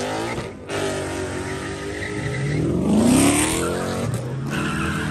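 Car engine revving hard as the car accelerates away, its note climbing about two and a half seconds in and loudest just after three seconds.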